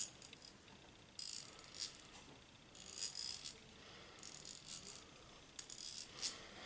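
Freshly cleaned and lubricated pawl-type hand ratchet being worked back and forth, its pawl clicking faintly in four short runs. The soft, quiet clicking is how a well-oiled ratchet of this style sounds.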